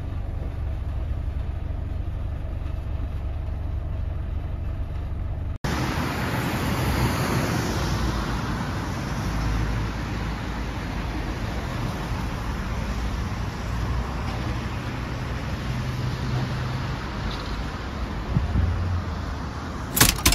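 Steady road-traffic noise. It starts as a low rumble and changes abruptly about five and a half seconds in to a broader, hissier street sound. A sharp knock comes at the very end.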